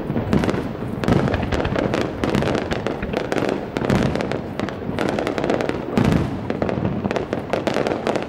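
Aerial fireworks going off in rapid succession: a dense stream of bangs and crackling, with heavier booms about a second in, about four seconds in and about six seconds in.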